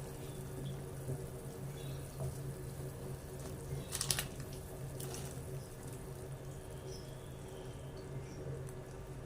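Water running at a kitchen sink over a steady low hum, with a short clatter about four seconds in.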